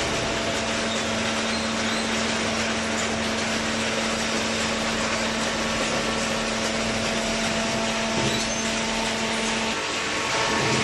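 Machinery running steadily with a low hum; the hum breaks off shortly before the end and comes back slightly higher, and there is a brief knock about eight seconds in.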